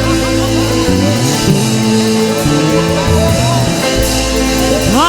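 Instrumental gospel worship music: long held chords over a steady low bass, with the chord changing about a second in and again near four seconds.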